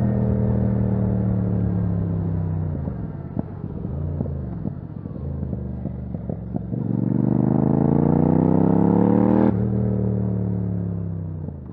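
Yamaha MT-07's parallel-twin engine through a titanium Akrapovic exhaust with no dB killer. It runs steadily, then eases off with crackles and pops on a closed throttle, revs up hard for a few seconds until the throttle snaps shut with a sharp crack, and fades out at the end.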